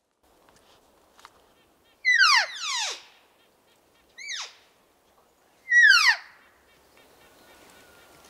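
Cow-elk mews: high, whistled calls that fall steeply in pitch. A pair comes about two seconds in, a short one at about four seconds, and another near six seconds.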